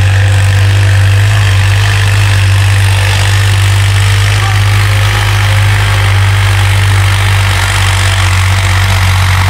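Farm tractor's diesel engine running steadily while it pulls a plow through the soil: a continuous low drone with no change in speed.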